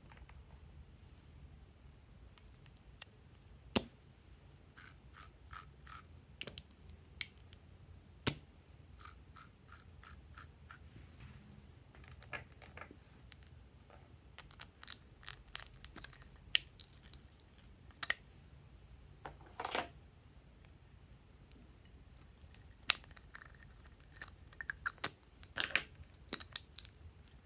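Scattered small clicks and taps of plastic lipstick tubes being handled. Near the end, a quick run of snips and scrapes as small scissors cut through lipstick.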